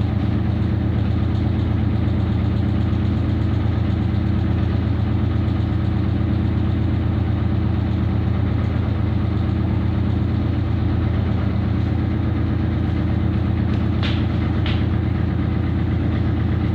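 Samsung Digital Inverter washing machine on a spin cycle: a steady, loud low hum with a fast even pulsing, the spin noise the owner suspects is getting bad. Two short clicks near the end.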